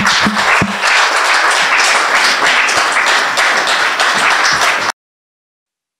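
Audience applauding, a dense clatter of many hands clapping, cut off abruptly about five seconds in.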